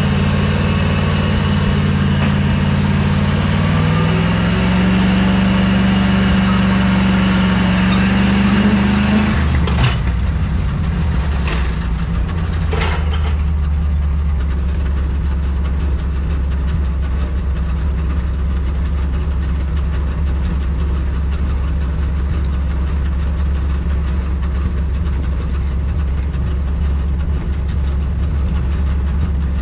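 Log truck's engine held at raised revs to drive the hydraulic side loader, its pitch climbing for about nine seconds, then dropping suddenly to a steady idle. A few sharp metallic knocks follow a second or so later.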